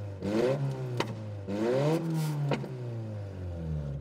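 Engine with straight hood-exit exhaust stacks, heard from inside the cabin, revved twice: the pitch climbs and drops back each time, with a sharp crack from the exhaust as each rev falls away. It then settles to a steady, lumpy idle.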